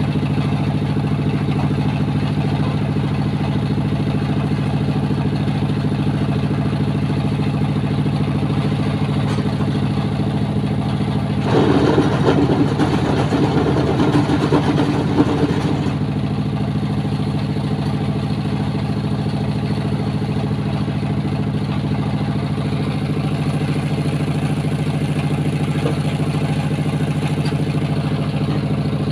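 Engine-driven concrete block press running with a steady hum. For about four seconds midway it gets louder with a rattle while the press lever is pulled down and the block is compacted.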